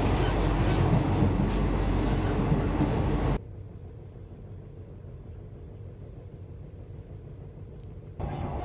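Old sleeper train running: a loud, dense rumble of the carriage and wheels with a few clicks, which drops suddenly after about three seconds to a much quieter steady hum, then comes back up near the end.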